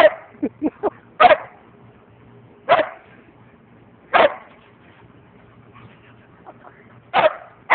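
A dog giving short, single barks, about six of them a second or more apart, with a longer pause in the middle. It is barking at its own reflection in a mirror.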